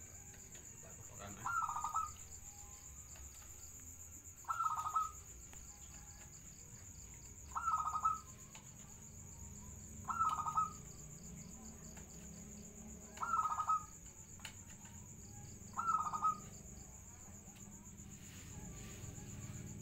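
Zebra dove (perkutut) cooing: six short coos, one about every three seconds.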